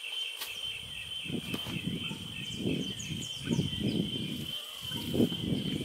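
Rope tie-down being hauled hand over hand to take up slack around spare motorcycle tires, a series of rough rubbing pulls. A steady high insect trill runs behind it.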